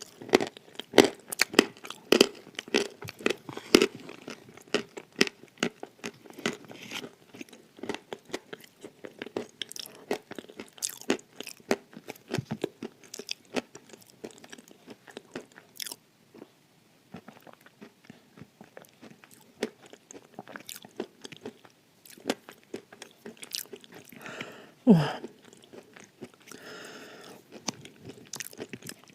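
Close-miked crunching and chewing of dry edible clay: sharp, dense crunches in the first half, thinning out to slower chewing. About 25 s in comes one louder, short sound with a falling pitch.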